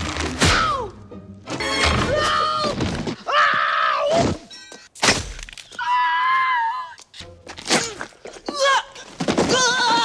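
Background music over slapstick impacts: a few heavy thuds as a swinging paint can strikes a person, with yells and groans between them.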